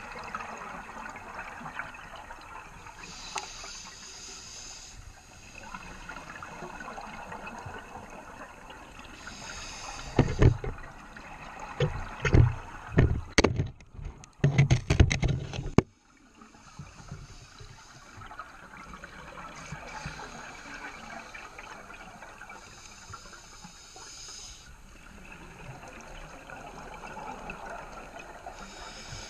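Scuba regulator breathing heard underwater. A hissing inhalation comes every several seconds. About ten seconds in, a loud run of bubbling exhaust lasts some five seconds.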